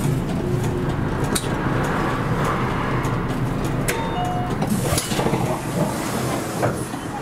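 Inside a city bus: the engine runs with a steady low rumble while the body rattles and clicks. A few short electronic beeps sound about four seconds in, and a brief hiss follows about a second later.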